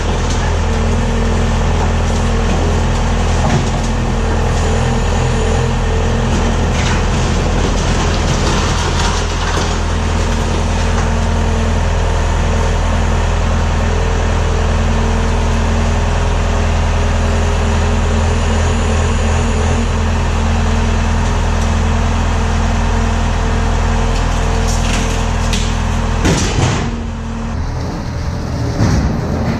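Bobcat S205 skid-steer loader's diesel engine running steadily while it lifts a salt spreader on its forks; about three seconds before the end the engine note drops and wavers.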